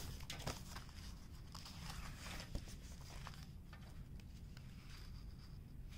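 Faint rustling and light ticks of a long fanfold paper list being handled and paged through, dying down in the second half.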